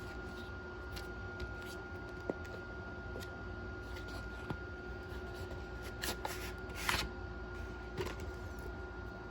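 Paper and card being handled: light taps and short rustles, with the loudest rustles about six to seven seconds in. A faint steady hum runs underneath.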